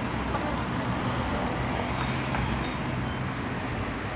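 Steady road traffic noise: a continuous low rumble of vehicles and engines on a city street.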